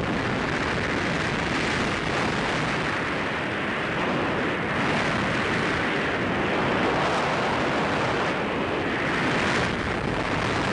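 Freefall airflow buffeting the camera's microphone during a wingsuit flight: a steady, loud rush of wind noise that swells a little now and then.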